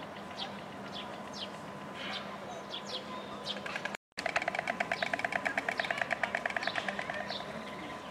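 White storks clattering their bills: a rapid, evenly repeated rattle of about three seconds, starting about four seconds in. High, short falling chirps of small birds come and go throughout.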